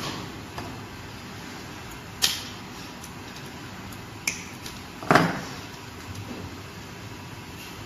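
Handling noises from a cordless rebar tying tool and its plastic case: a few sharp clicks and knocks, the loudest a little after five seconds in, over a steady background hiss. The tool's motor is not run.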